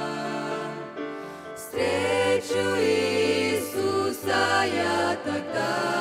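Youth vocal group singing a Christian song in harmony into microphones. A held chord fades about a second and a half in, then the group comes back in louder with moving melody lines.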